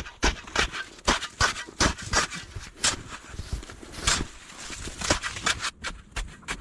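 Footsteps crunching through deep snow, an uneven step every half second or so.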